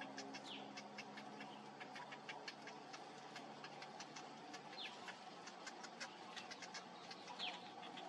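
Faint begging calls of cinnamon bittern chicks at the nest: rapid, irregular ticking with three short high calls that slide downward, about half a second in, near five seconds and near the end.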